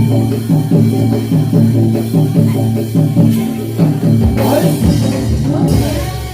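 Live gamelan music for a jathilan dance: drums and pitched metal percussion playing a fast, evenly repeating pattern. A brief bright clash cuts through about four and a half seconds in and again near the end.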